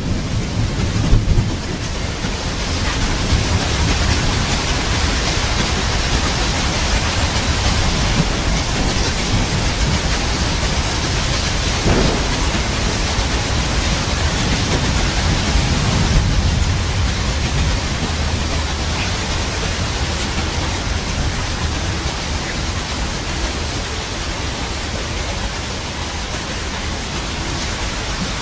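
Steady heavy rain with rolling thunder rumbling low underneath, swelling now and then.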